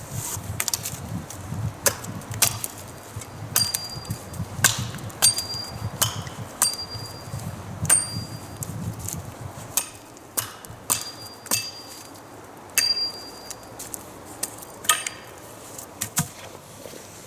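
A metal blade striking wood in irregular chopping blows, about one or two a second. Several blows leave a brief high metallic ring.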